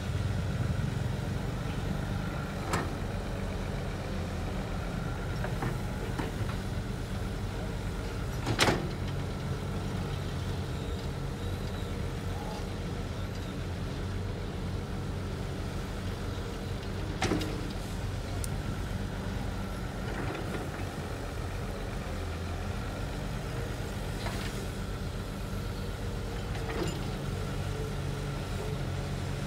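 Caterpillar 320C hydraulic excavator's diesel engine running steadily while it digs, with a few sharp clanks from the bucket and arm, the loudest about nine seconds in and another about seventeen seconds in.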